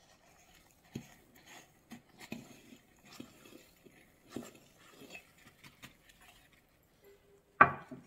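Coarse salt grains pattering in small scattered ticks as they are shaken from a ceramic mug onto sliced chillies in a glass jar. Near the end comes a single loud knock as a gloved hand pushes into the jar.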